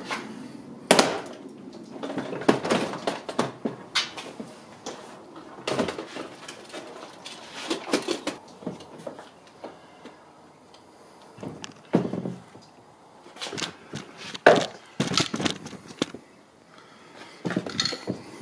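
Plastic trim clips and the inner door panel of a 2016 Jeep Renegade clicking, popping and knocking as the panel is pried off the door. The sharp knocks come irregularly, a dozen or so, with a quieter stretch in the middle.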